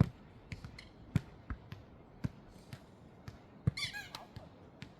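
Jokgu ball being kicked and bouncing on the court: a series of sharp thuds, roughly one a second.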